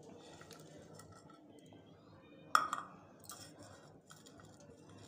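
Stainless steel bowl knocking against another steel bowl as chopped onion and green chilli are tipped in: one sharp clink about halfway through, then a few lighter clicks.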